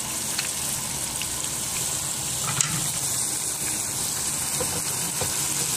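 Pomfret fish pieces shallow-frying in hot oil in a pan, a steady sizzle, with a wooden spatula moving them and knocking lightly against the pan, the sharpest knock about two and a half seconds in.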